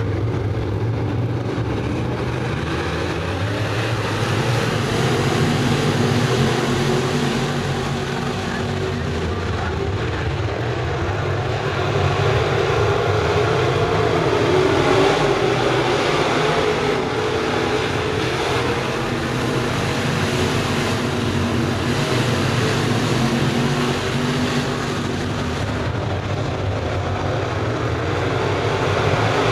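A pack of crate-engine V8 dirt late model race cars running laps together. The engine note rises and falls as the cars go round the oval, swelling louder midway and again near the end.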